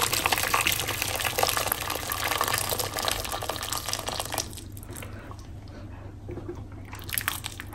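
Hot water poured from an electric kettle into a large pot over a whole chicken: a steady splashing pour that stops about four and a half seconds in, followed by a few faint ticks.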